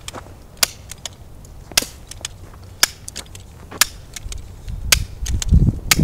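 BB gun shots: sharp snaps about once a second, six louder ones with a few fainter clicks between. A low rumbling noise builds near the end and becomes the loudest sound.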